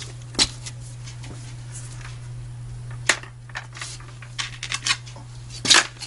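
Sheet-metal belt guard of an air compressor being lifted off and handled, giving a few sharp metal clanks and knocks, the loudest near the end, over a steady low hum.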